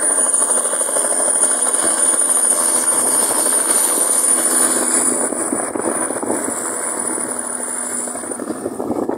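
Light helicopter lifting off and flying away: rotor chop with a high steady turbine whine, the whine fading about eight seconds in as it leaves.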